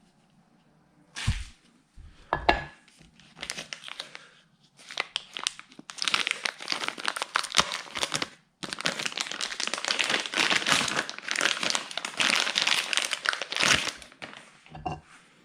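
Electric welding arc crackling in two long runs several seconds each, split by a brief pause and preceded by a couple of knocks: weld build-up on the worn compensator of a Harley-Davidson Shovelhead primary drive.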